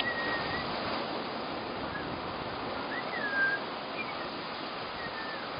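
Outdoor nature ambience: a steady rushing noise like moving water, with a few brief bird whistles, one near the start, one about three seconds in that rises and falls, and one near the end.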